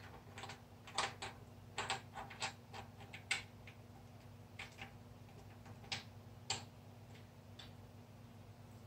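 Irregular sharp metallic clicks and ticks, a dozen or so, closer together in the first few seconds and fewer later, from a hand tool working the Allen-head bolts out of a BMW R90/6's top cover. A faint steady low hum runs underneath.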